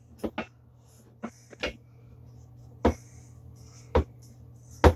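Handling sounds of an object being worked shut: a scattered series of sharp clicks and knocks, about seven, with light rustling between them, over a steady low hum.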